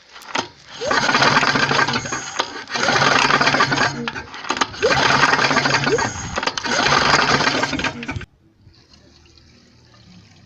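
Briggs & Stratton Quattro 4 HP four-stroke mower engine being cranked over by its pull-cord starter four times, each crank lasting about a second and a half, without firing: a spark check with the plug earthed against the engine.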